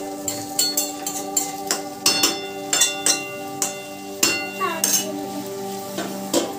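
Metal spatula stirring bottle gourd pieces in a metal kadai, with a dozen or so sharp clinks and scrapes against the pan, some leaving a brief ring, and frying sizzle underneath. Near the end a steel plate is set down on the pan as a lid with a clink. Background music runs throughout.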